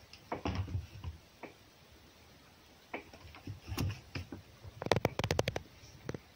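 Scuffling and scratching of a cat's and a fox's paws and claws on a wooden box and straw as they tussle: scattered clicks and knocks, then a fast run of about ten sharp knocks about five seconds in.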